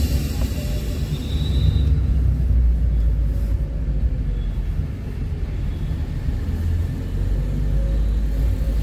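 Steady low rumble of a car's engine and tyres, heard from inside the cabin while driving along a town street.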